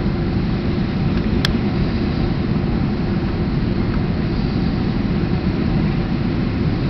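Steady low rumble of a Boeing 767-300's engines and rushing air, heard inside the cabin on final approach, with a single brief click about a second and a half in.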